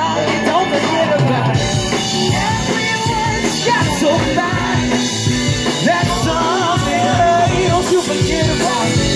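Live band playing a song: lead vocals over drums, bass and keyboards, with a trombone in the line-up.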